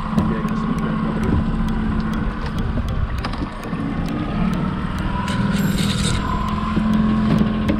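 Boat's outboard motor running steadily under a haze of wind and water noise. A brief hiss comes about two-thirds of the way through.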